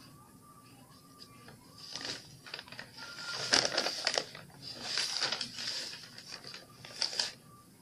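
A sheet of newspaper rustling and crinkling as it is lifted and laid back down on a table, in four bursts, the loudest about three and a half seconds in.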